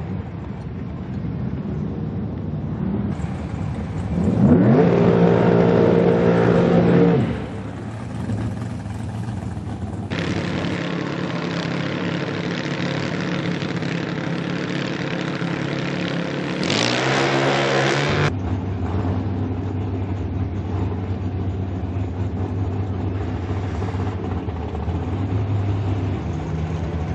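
Drag-racing engines running at the strip: a steady idle, broken by two hard accelerations whose pitch climbs fast, the louder about five seconds in and another near eighteen seconds.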